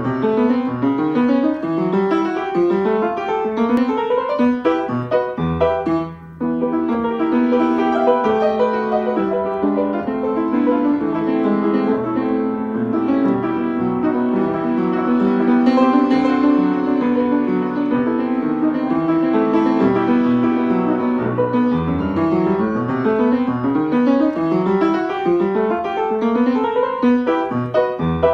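Piano music playing rising arpeggio runs over held low bass notes, with a brief pause about six seconds in.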